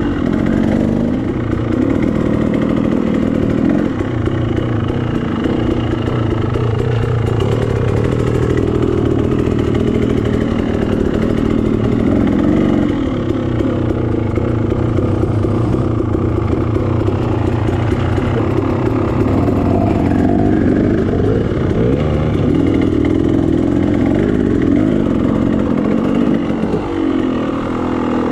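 Two-stroke KTM 300 XC dirt bike engine running under load, revving up and dropping back again and again as the throttle is opened and closed.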